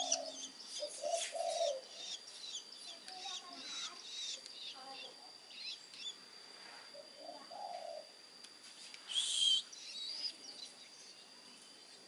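Long-tailed shrike nestlings, about three weeks old, begging for food: many short high chirps in quick succession, thinning out after about six seconds, with one louder call about nine seconds in and a few lower calls among them.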